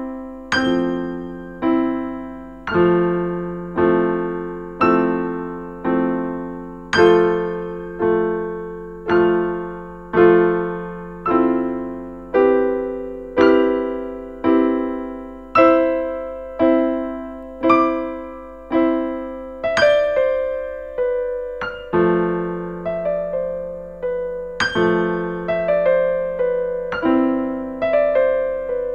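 Background piano music: slow chords struck about once a second, each left to fade, with quicker notes joining after about twenty seconds.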